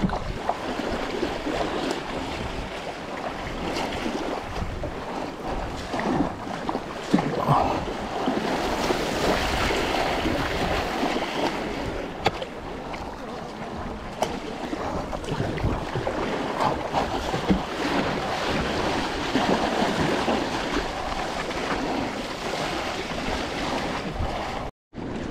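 Sea kayak moving through choppy sea: water rushing and splashing at the bow and around the paddle, with wind buffeting the microphone. The sound cuts out for a moment near the end.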